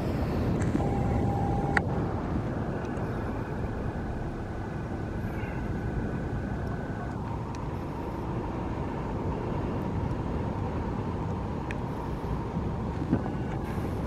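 Steady wind noise on the microphone over the low, continuous rush of surf.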